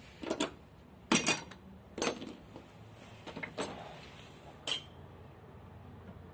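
Metal tools and parts clinking and knocking during work on an oil burner: a handful of separate sharp clinks spread over a few seconds, the loudest a little after one second and at two seconds.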